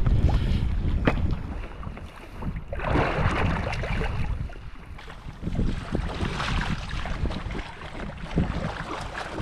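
Kayak paddling in wind: paddle strokes splash and water sloshes against the hull, with wind buffeting the microphone in a heavy low rumble.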